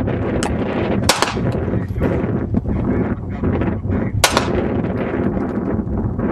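Pistol shots fired one at a time: a fainter crack, then a quick pair about a second in, and another single shot about four seconds in. A steady rushing noise runs underneath.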